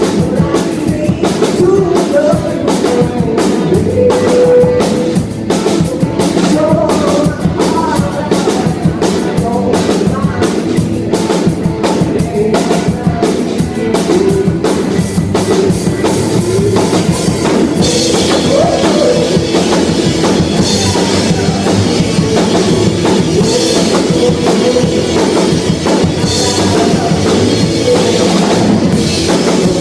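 A live rock band playing loudly, with a drum kit keeping a steady beat and a singer's voice over the instruments. About two-thirds of the way through, the cymbals come in harder and the sound gets brighter.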